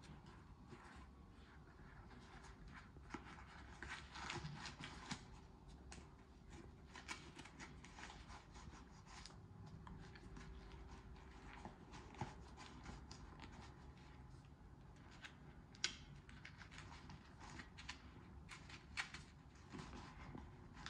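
Brave GK Venom goalkeeper glove, latex palm and fabric cuff, being worked onto a hand: faint, scattered rustling and rubbing of latex and fabric against skin, with small sharp ticks, the loudest about sixteen seconds in.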